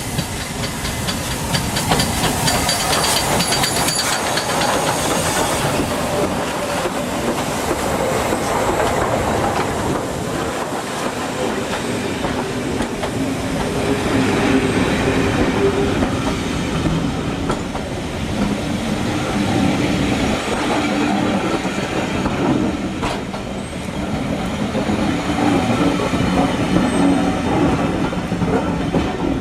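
A train running past on the rails, wheels clattering steadily over the track, with a thin high squeal of wheels on rail in the first few seconds.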